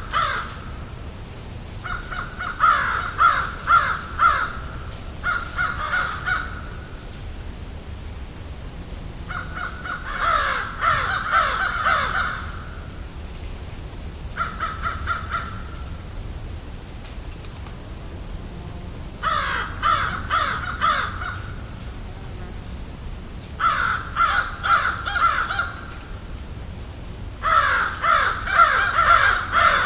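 Crows cawing in bouts of rapid repeated caws, each bout lasting one to three seconds with gaps of a few seconds between, over a steady high hiss.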